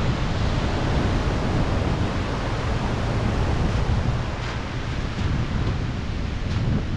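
Steady rushing noise of wind buffeting the microphone over the low rumble of a truck driving a bumpy dirt road, with a few faint ticks.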